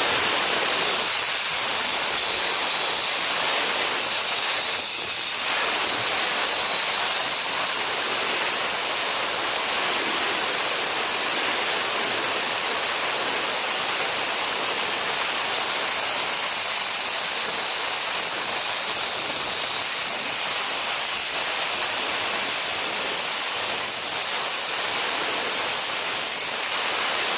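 Concrete road-cutting saw cutting through a concrete slab: a steady, high-pitched, hissing grind that dips briefly about five seconds in.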